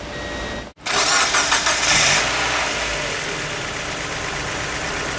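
Mazda Miata's four-cylinder engine being started: it catches and runs louder at first, then settles into a steady idle about two seconds in. This is a test start after new spark plug wires and coil-on-plug boots were fitted.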